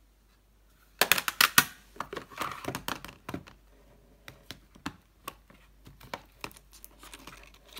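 Eyeshadow palettes in plastic and cardboard cases being handled: a dense run of sharp plastic clicks and crinkling starting about a second in, then scattered lighter clicks and taps.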